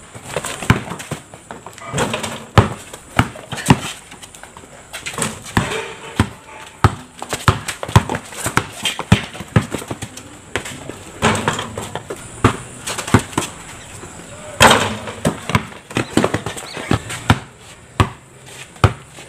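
Basketball bouncing on a concrete court during one-on-one play: irregular sharp bounces, at times several a second, with shoe scuffs between them. A louder bang comes at about fifteen seconds in.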